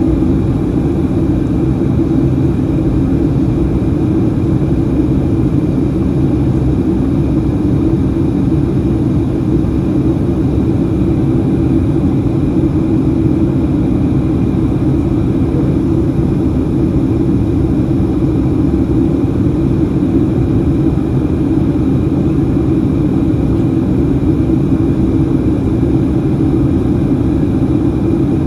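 Steady in-cabin noise of a Boeing 737-700 on approach, heard from a seat over the wing: a low rumble of its CFM56-7B engines and airflow, with a faint steady high whine.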